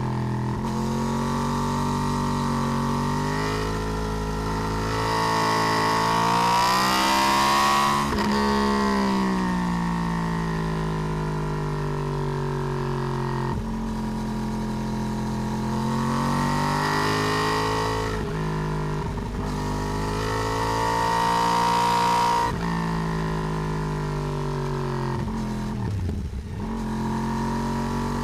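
Yamaha R1 (RN22) crossplane inline-four sportbike engine under way, heard close up from a swingarm-mounted camera. Its uneven big-bang exhaust note climbs with the revs and falls back several times as the throttle opens and closes, with sudden breaks where the throttle shuts or a gear changes.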